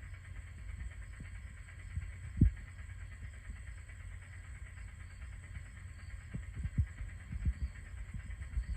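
Steady background hiss with a faint high whine, broken by dull low thumps: a single stronger thump about two and a half seconds in and a scattered run of softer ones near the end.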